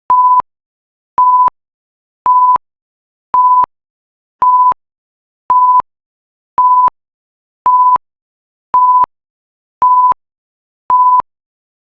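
Electronic timer alarm beeping: a steady single-pitch beep about a third of a second long, repeating about once a second, the signal that the countdown has run out.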